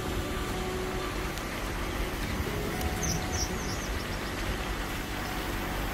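Wood River's shallow current rushing over a rocky bed, a steady rushing noise. About three seconds in, a small bird gives a quick run of about four high chirps.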